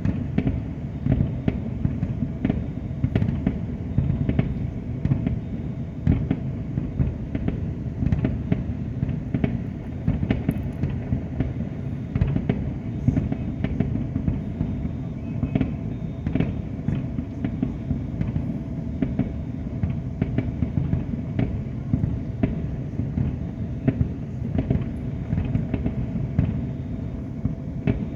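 Fireworks display: a dense, unbroken barrage of overlapping booms with frequent sharper cracks, many bursts every second.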